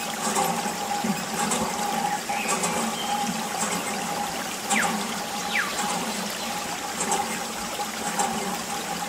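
A thin stream of water trickling from a small tube onto a plastic toy tractor, splashing steadily, over a steady hum.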